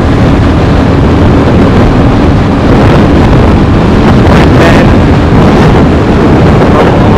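Heavy wind rush buffeting the microphone on a Royal Enfield Classic 350 ridden at high speed, with its single-cylinder engine running under it.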